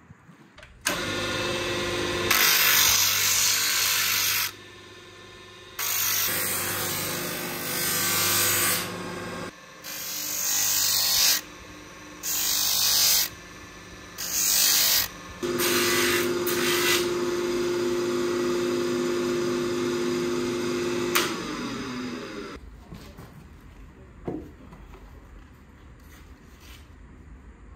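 A small power sanding disc starts up, and the wooden knife handle is pressed against it in about five loud bursts of sanding, with the motor humming between them. The motor then spins freely and winds down with a falling hum about three quarters of the way through.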